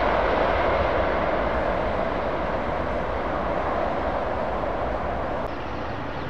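Jet engine noise from a Boeing 777-300ER's two GE90 turbofans as the airliner rolls out on the runway just after landing: a steady rushing roar that slowly fades and drops a little near the end.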